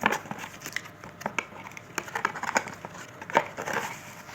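Unboxing packaging handled by hand: scattered rustling and crinkling with light clicks and knocks as an accessory is pulled from its box.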